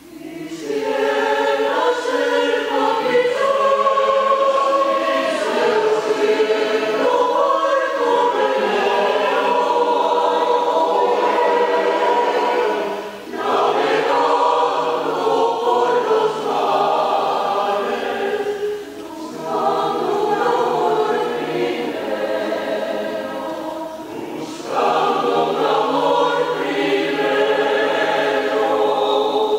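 Mixed choir of men's and women's voices singing a habanera, coming in after a moment's quiet, with brief dips between phrases.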